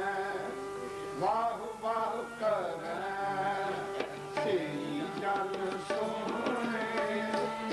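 Sikh kirtan: a man singing a devotional hymn to harmonium, with tabla keeping the rhythm. The melody glides and bends over the harmonium's steady held notes, and tabla strokes cut through at intervals.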